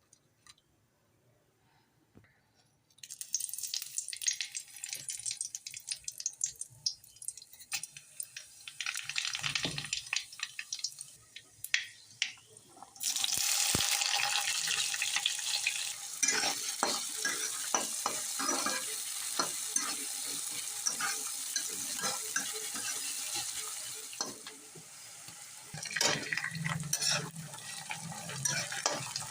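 Kitchen work while cooking okra sabzi: utensils scraping and clicking over a hiss, which becomes loud and steady about a third of the way in and eases again near the end.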